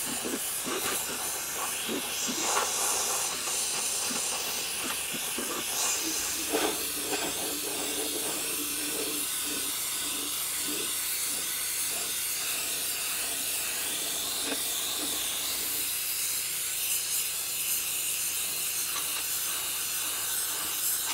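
Pressure washer wand with a wet-sandblasting adapter spraying a jet of water and sand against a steel pickup truck frame, stripping the old coating: a steady hiss with a few scattered light knocks.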